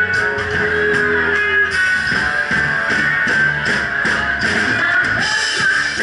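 Live rock cover band playing loud and steady: electric guitar strumming over bass and drums on a Ludwig Vistalite kit, with cymbals ringing through.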